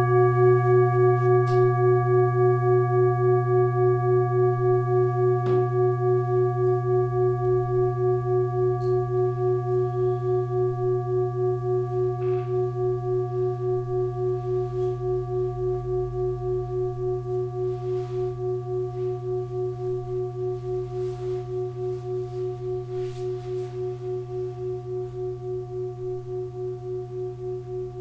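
Tibetan singing bowl ringing out: a steady low hum with several higher tones above it, wavering about twice a second and slowly fading.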